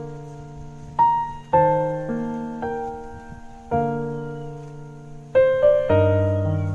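Background music: slow piano chords, each struck and left to fade, with a new chord every second or two and a quicker run of notes near the end.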